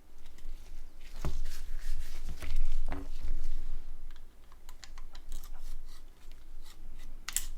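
Small parts of a Nokia N91 phone being handled and pressed together: scattered light clicks and rubbing, with a sharper click near the end.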